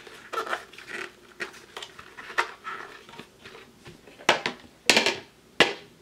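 Hard plastic parts of a Hoover Rewind vacuum's dust cup and cyclone assembly being handled and fitted together: scattered light clicks and scrapes, then several sharper knocks in the second half.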